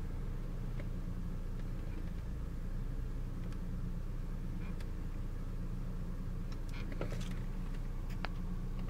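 BMW E36 idling steadily, with scattered light clicks and creaks from the steering wheel, bunched about seven seconds in and one sharp click near the end: the abnormal steering-wheel noise being checked.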